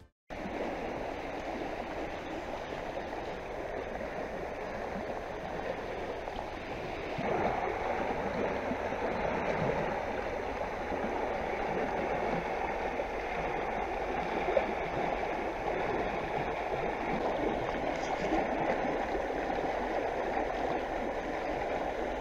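A small river running fast over a shallow stony bed, a steady rushing of water that grows a little louder about seven seconds in.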